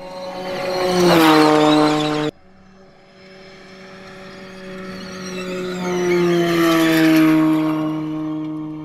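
Audi RS Q e-tron E2 rally car passing at speed, a steady pitched drive note that drops in pitch as it goes by. The first pass cuts off abruptly about two seconds in. A second pass builds up, goes by about six seconds in and fades away.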